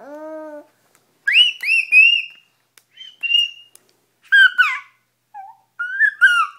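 A baby's vocalizing: a short low coo, then a string of high-pitched squeals from about a second in, each gliding up and falling away, the loudest around two seconds in.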